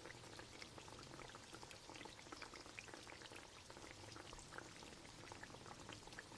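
Chicken shashlik skewers frying in a little oil in a pan, with a faint sizzle and scattered small crackles.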